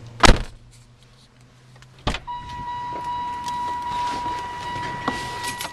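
Two car doors slam shut about two seconds apart, the rear door and then the driver's door. After the second slam a steady high tone starts up inside the car over a low rushing noise, with a small click near the end.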